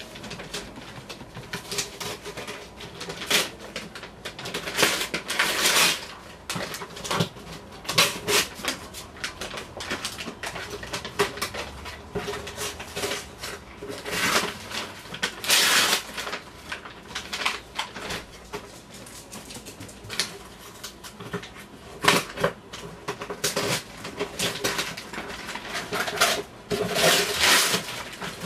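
Parcel packaging being torn and rustled open by hand, in irregular bursts of tearing and crinkling.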